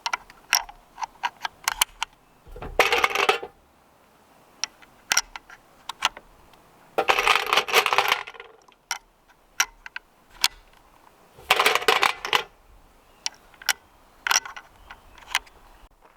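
Small sharp metallic clicks and clinks of gear being handled, scattered throughout, with three scraping or rustling noises about a second long.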